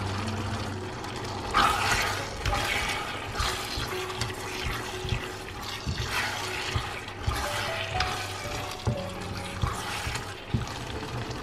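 A stir-fry of chicken, capsicum and onion in a thick oyster-sauce glaze sizzling in a non-stick frying pan while a spatula stirs it, in a series of scraping sweeps with short taps of the spatula against the pan.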